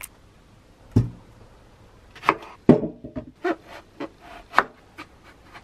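A kitchen knife cutting an eggplant on a wooden cutting board: a low knock about a second in, then a string of irregular sharp knife strikes and scrapes against the board.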